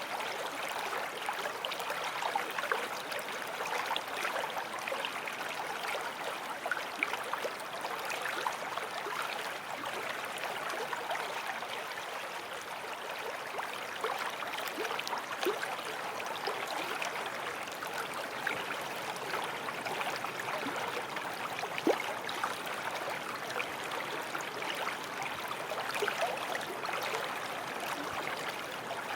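Forest stream flowing: a steady watery rush with many small splashes and gurgles.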